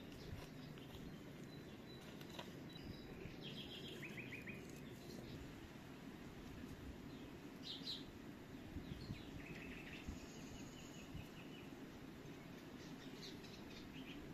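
Small songbirds chirping, short trills of quickly repeated high notes scattered through, over a faint, steady low background rumble.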